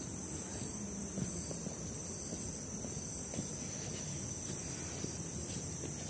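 Steady high-pitched chorus of insects, with a low uneven rustle and footfalls of someone walking a forest trail underneath.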